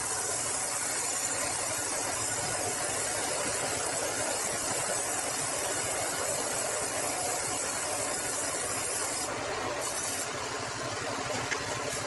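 Sawmill band saw running and cutting through a log of bengkirai, a very hard timber: a steady machine drone with a dense high hiss from the blade in the cut. The hiss drops out about nine seconds in, comes back briefly, then fades.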